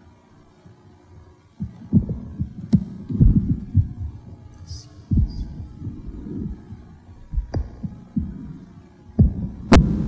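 Handling noise on a live microphone as it is carried and set up at the lectern: an irregular run of low thumps and bumps, with a few sharp clicks, the loudest near the end.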